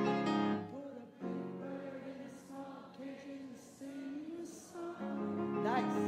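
Concert audience singing the melody line back in call-and-response, quieter and wavering, over the band's sustained chords. The chords drop back about a second in and swell up again near the end.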